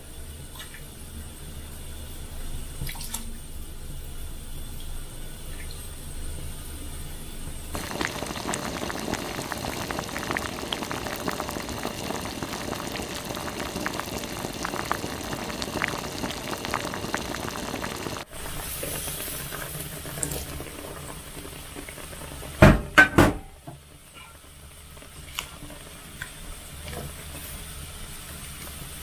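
Tap water running for about ten seconds, starting and cutting off abruptly. A few seconds later comes a quick cluster of three loud knocks.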